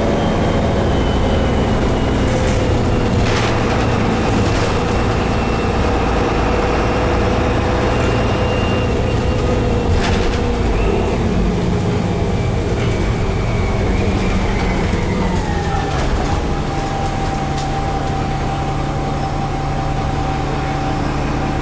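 Van Hool A330 city bus driving, heard from inside the passenger cabin: its MAN D0826 diesel and Voith automatic gearbox run steadily with a whine. The whine slowly falls, then drops in pitch about three-quarters of the way through. A few short knocks and rattles come from the body.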